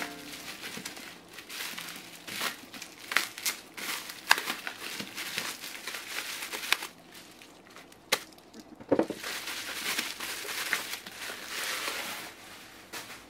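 Bubble wrap crinkling and crackling as it is cut with a pocket knife and pulled off a small cardboard box, in an irregular run of crackles and clicks, with a heavier thump about nine seconds in.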